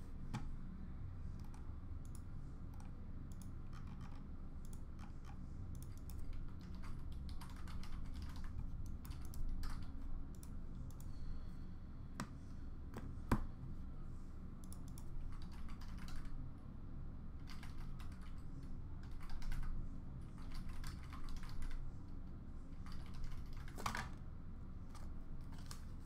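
Typing on a computer keyboard: irregular, scattered key clicks over a steady low room hum.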